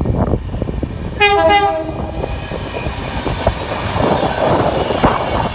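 Train horn giving two short blasts about a second in, the second note lower than the first, then the noise of the train running past.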